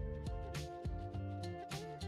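Background instrumental music: held chords over a bass line, with a light percussive beat.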